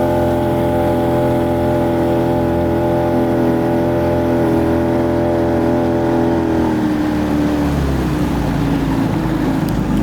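Engine running steadily at speed, then its pitch drops about seven seconds in as it slows down.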